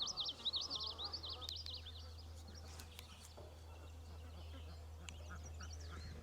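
Small birds chirping: a fast twittering run of chirps for the first two and a half seconds, then a few fainter chirps near the end, over a low steady hum.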